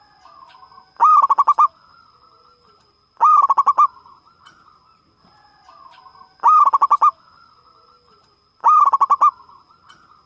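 Zebra dove (perkutut) singing: four loud phrases of rapid staccato coos, about one every two and a half seconds, with softer coos between them.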